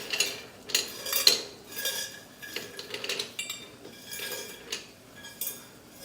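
Ice cubes being dropped onto a plate: a run of irregular clinks and knocks.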